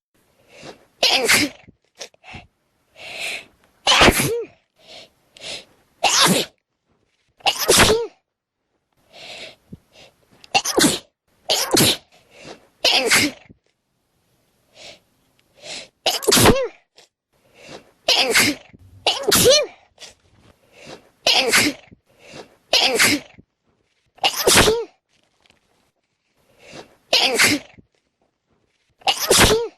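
A person sneezing over and over in a sneeze attack: about fifteen loud sneezes, one to three seconds apart. Many come with a quieter in-breath just before them, and there are a couple of longer pauses.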